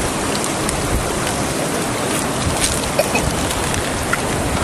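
Mountain valley stream rushing: a steady, unbroken wash of water noise, with a few faint ticks of small splashes on top.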